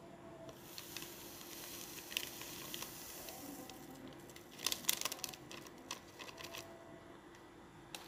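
Instant drink powder poured from paper-foil Nutrisari sachets into a glass bowl: soft rustling and pattering of powder and packets, with a short burst of crinkling from the sachets about five seconds in, the loudest part.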